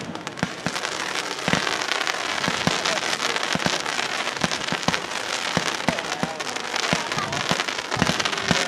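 Aerial fireworks crackling: a dense, continuous spatter of many small sharp pops with a few louder ones, the sound of crackle-effect stars after shell bursts.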